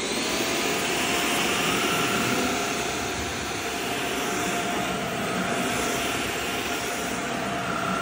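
Proscenic P11 cordless stick vacuum-mop switched on: its motor spins up in the first second, then runs steadily with a rush of air and a steady whine while the powered floor head vacuums and wet-mops a hard floor.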